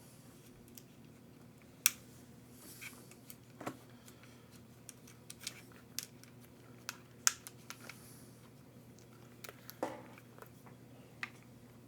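Hands working small plastic parts and tools while taking apart an RC truck's battery box: scattered sharp clicks and taps, the two sharpest about two seconds and seven seconds in, over a faint steady hum.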